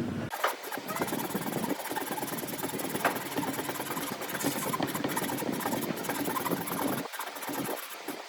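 Small power tool running against wood, with a steady rough grinding noise that stops about seven seconds in.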